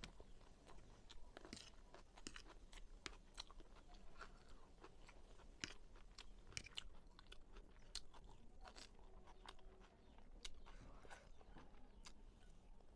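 Close-miked chewing of a bitten-off piece of raw green chili, a run of irregular crisp crunches and wet mouth clicks, several a second.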